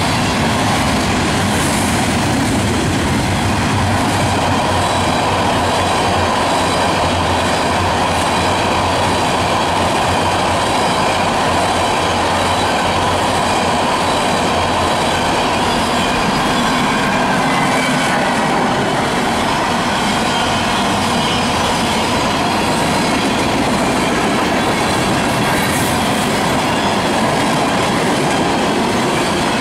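Freight cars of a passing mixed train (tank cars, a steel coil car and covered hoppers) rolling by at steady speed: a loud, unbroken noise of steel wheels and trucks running on the rails.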